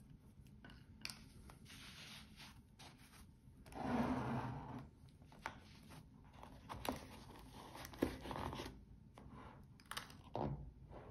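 Hands handling a watch and its cushion pillow as they are packed into a cardboard presentation box: rubbing and scraping, loudest about four seconds in, and scattered light taps. A dull knock near the end as the box lid goes on.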